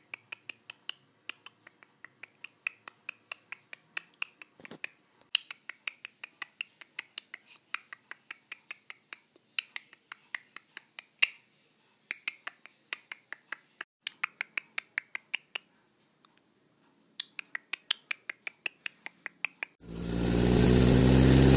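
Runs of sharp, evenly spaced clicks, about four or five a second, with short pauses between runs, like a ratchet wrench tightening a wheel. Near the end, loud music with a whistled, wavering tune comes in.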